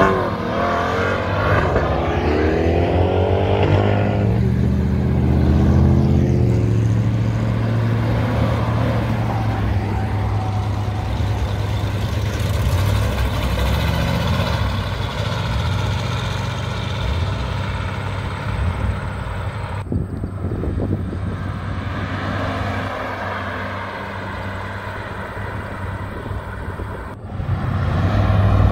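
Cars driving past one after another, a C8 Corvette convertible first and a 1961 Chevrolet Impala later. Each engine and exhaust note swells and fades as the car goes by over a steady low rumble. A rising engine note pulls away in the first few seconds, and the sound swells again near the end as another car approaches.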